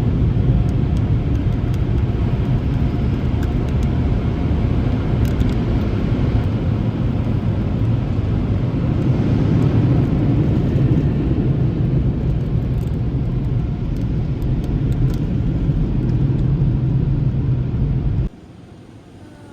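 Automatic car wash running, heard from inside the car: a steady rumble with water-spray hiss, which cuts off abruptly near the end.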